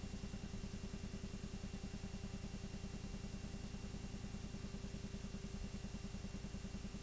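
Steady, fast mechanical clatter of about nine beats a second over a constant hum, as from an 8mm film projector running while the silent home movie plays.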